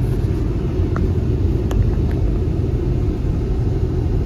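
Steady low rumble of a moving vehicle on the road, road and wind noise with no speech.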